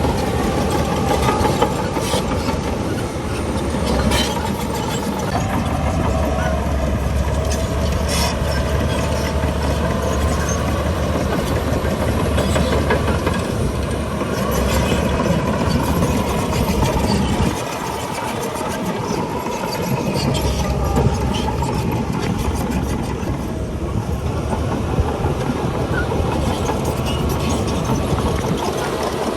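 Shantui DH17 crawler bulldozer working: its diesel engine drones steadily under load, with squealing and clanking from the steel tracks. The engine's low drone drops briefly about two-thirds of the way through, then comes back.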